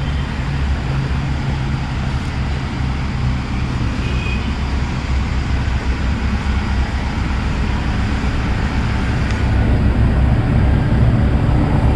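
Heavy excavation machinery's diesel engine running with a steady low rumble, louder near the end.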